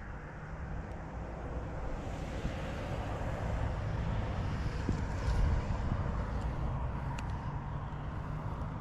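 A steady low engine hum that grows slowly louder, with a few faint ticks near the end.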